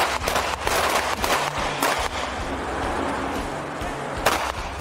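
9mm pistol shots on an open range: a quick string of sharp shots in the first two seconds and one more near the end, over a steady low hum.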